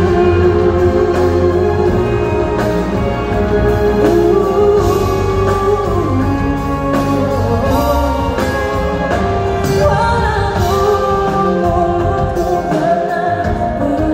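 Live pop concert: a female singer sings over a band of keyboards, drums, bass and electric guitar, heard through a large venue's PA from within the crowd.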